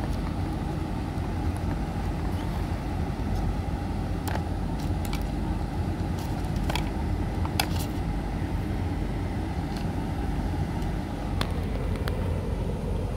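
Steady low background rumble, with a few light clicks and taps as the phone box, its packaging inserts and charging cable are handled.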